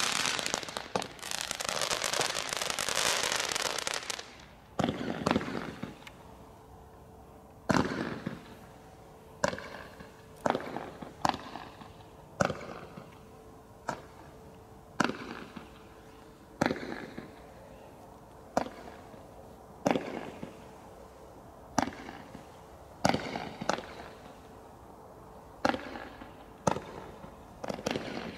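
A Bright Star Giant 18 shot barrage firework firing its shots one at a time, sharp bangs about every second or so. Before the single shots begin, there are about four seconds of dense crackling.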